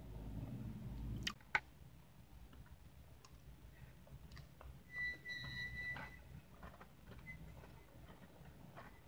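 Quiet eating sounds: a metal fork clicking sharply twice against a clear plastic bowl about a second and a half in, then small scattered clicks of the fork and mouth while eating whipped cream and Oreo cookies. A brief thin whistle-like squeak sounds about five seconds in.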